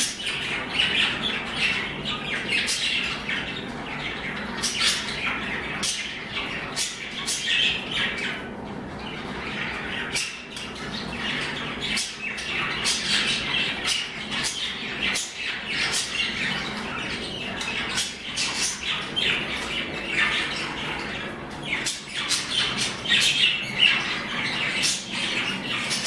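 Several budgerigars chattering and squawking without a break: a busy warble of chirps with many sharp clicks mixed in.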